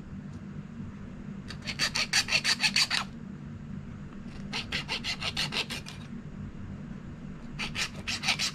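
Junior hacksaw blade sawing through a fitness band's rubber strap. There are three short runs of quick back-and-forth strokes, each lasting a second or two, with pauses between them.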